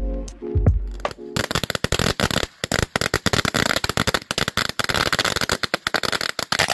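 A long string of red firecrackers going off in a rapid, irregular run of sharp cracks for several seconds, starting about a second and a half in and stopping abruptly near the end. Before it, the tail of some music with a beat.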